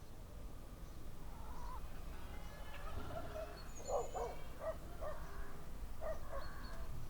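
A dog barking several times in quick succession in the middle, with small birds chirping higher up, over a steady low rumble of rural ambience.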